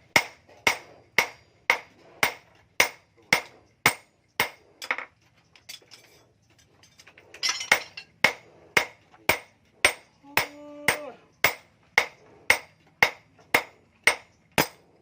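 Forging hammer striking an axe blank on an anvil in a steady rhythm, just under two blows a second, each with a bright metallic ring. The hammering stops for about two seconds midway, then resumes at the same pace.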